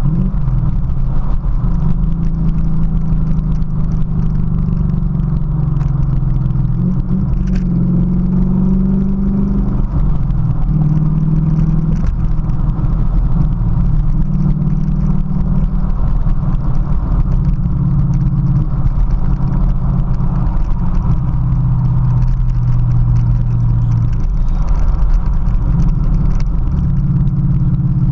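2017 Ford Mustang GT's 5.0 L V8 running through a Magnaflow Competition cat-back exhaust, heard from inside the cabin while driving. It is a steady low exhaust drone whose pitch rises and settles several times as the car speeds up and eases off.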